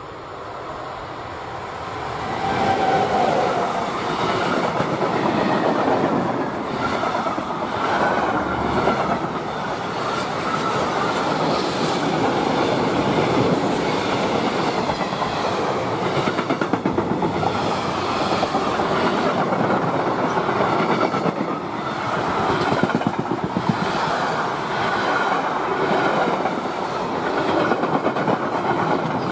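DB Cargo class 185 electric locomotive approaching and passing with a long freight train of tank wagons and covered wagons, getting louder over the first few seconds. The wagons then roll by steadily, their wheels rumbling and clattering over the track in a clickety-clack.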